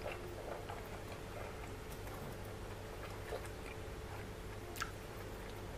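A person chewing a mouthful of rice and spicy pork curry: soft, wet mouth clicks and smacks come every fraction of a second over a low steady hum. One sharper click comes a second before the end.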